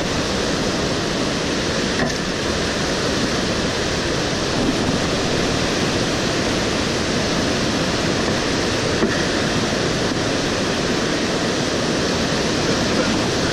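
Whitewater river rapids rushing steadily over boulders.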